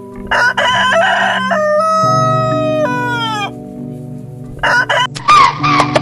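A rooster crowing once: a harsh start, a long held note, then a falling tail, over background music with sustained low notes. Short, sharp calls begin near the end.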